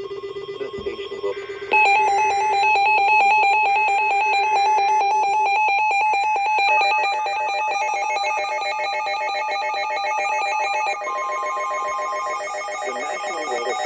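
Electronic alert tone of a weather-alert radio: a rapid, pulsing trill like a telephone ring that starts about two seconds in and runs on, shifting pitch slightly partway through, with a brief steady beep around eleven seconds. It signals an incoming warning.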